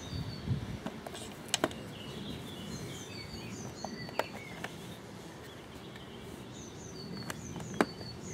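Garden birdsong, a short high phrase repeated every few seconds. Over it come a few sharp clicks and knocks, the loudest near the end, as a plastic pond pump casing is handled and opened.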